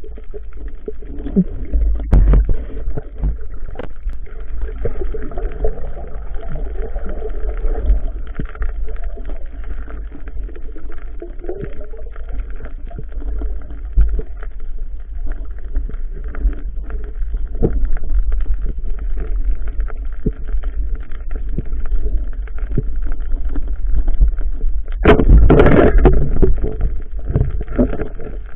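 Underwater noise picked up through a waterproof camera housing: a steady low rumble with many short clicks and crackles, and a louder rushing burst lasting about a second, near the end.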